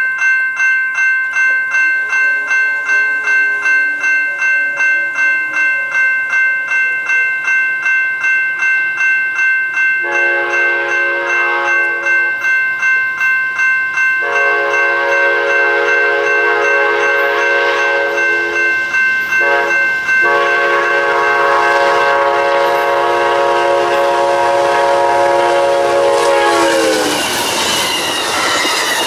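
Grade-crossing bell ringing about three times a second as Amtrak's Southwest Chief approaches. About ten seconds in, the locomotive horn sounds the crossing signal: two long blasts, a short and a long, its pitch dropping as the locomotive passes near the end, followed by the rush and clatter of the passenger cars going by.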